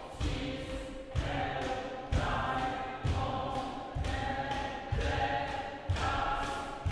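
A group of voices singing held notes together as a chant, with a sharp thump marking a steady beat about once a second.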